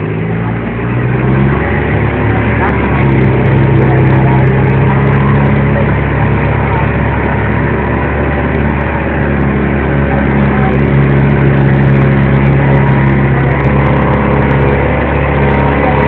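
Jeep engine running steadily while under way, a little louder from about three seconds in.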